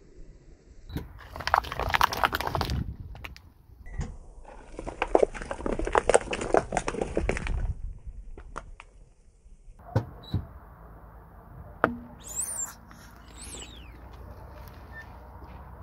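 A car tire rolling over a bundle of dry spaghetti and long twisting balloons: dense crunching and snapping crackle in two stretches of a second or three each. Later come a few single sharp snaps and some brief high squeaks.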